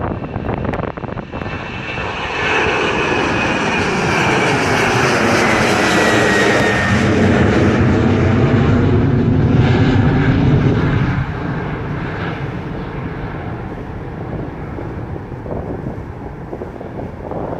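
Boeing 737-800 airliner's CFM56-7B jet engines as the plane passes close by: the noise builds, stays loud for several seconds with a whine that falls in pitch, then fades away.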